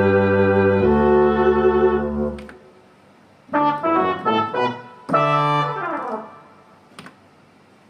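Yamaha MX88 synthesizer playing a brass-type patch: a held chord that fades out about two and a half seconds in, a quick run of notes, then a final chord that dies away. A faint click comes near the end.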